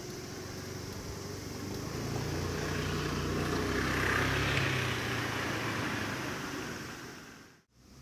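A vehicle passing by: its noise swells to a peak about four seconds in and then fades, with a low steady hum underneath. The sound cuts out abruptly just before the end.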